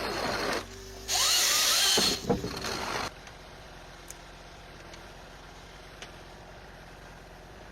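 Small forestry harvester-forwarder at work: a short burst of loud rushing machine noise, then a louder two-second burst of the same, after which only a low steady engine hum with a few faint clicks remains.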